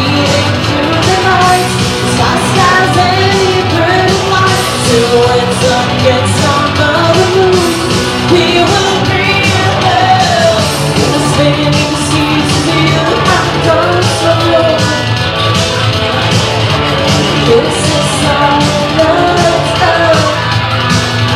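A gothic rock band playing loud live: a woman sings a melody over electric guitar and bass, while drums keep a steady beat.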